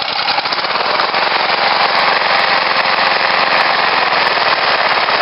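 Honda lawn mower engine, a small single-cylinder four-stroke, running steadily and loudly, having just started.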